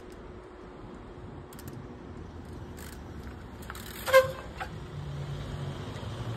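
Trials bike hopping up onto a boulder, its brake letting out a short, loud squeal about four seconds in, followed by a fainter one half a second later.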